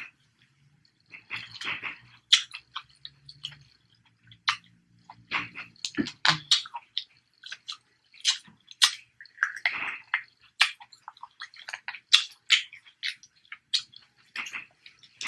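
Close-miked chewing and wet mouth smacks of someone eating snow crab legs, with many short clicks at an irregular pace.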